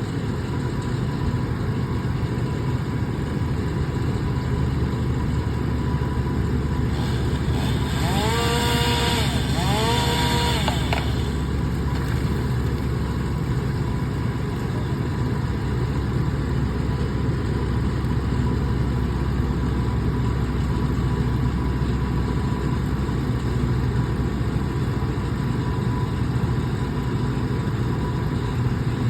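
Engine of tree-removal equipment running steadily. About eight to eleven seconds in, a brief hiss rises over it with two short whistling tones that climb, hold and drop.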